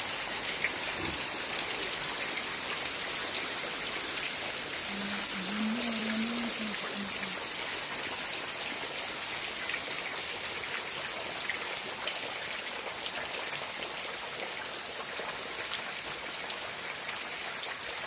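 Heavy rain falling steadily, a dense even hiss with scattered drips and ticks.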